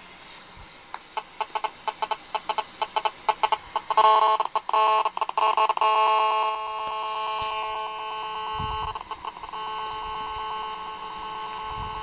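Mobile phone radio interference, picked up by a bare wire in a headphone jack, played back amplified through a laptop speaker. It starts as a train of sharp ticks that thickens into rapid clicking bursts, then settles about six seconds in into a steady electronic buzz. This is the pulsing a GSM phone gives off when a call is placed, which he takes for the phone's handshaking with the tower.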